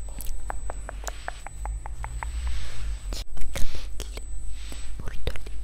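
Hairbrush bristles dragged through hair close to a headset microphone. It starts as a quick run of about a dozen light ticks, then turns into scratchy rustling strokes with a few sharper clicks.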